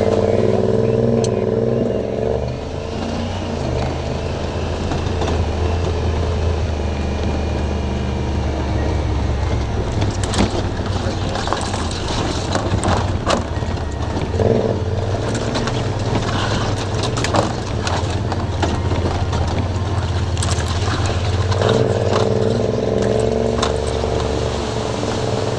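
Honda Pioneer side-by-side's engine running at low trail speed on a rough dirt track, with a higher engine note at the start and again near the end. Short knocks and rattles of the machine over rough ground come in the middle.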